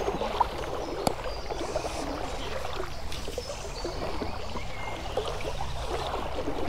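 Shallow chalk stream running and burbling close by, a steady wash of moving water. Two sharp clicks stand out in the first second or so.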